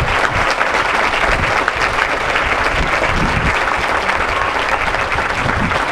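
Crowd applauding: a large audience clapping steadily and densely.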